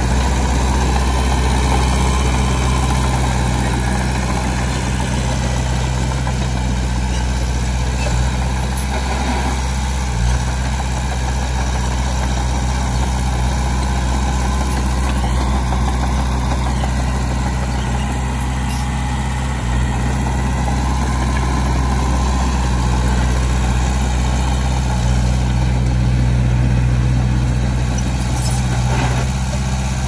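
Heavy diesel engine of earthmoving equipment running steadily, a deep even drone with little change in pitch.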